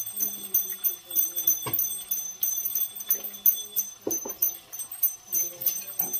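Wet paste frying in hot oil in a non-stick pan, crackling and spattering in irregular sharp pops, over a steady high whine.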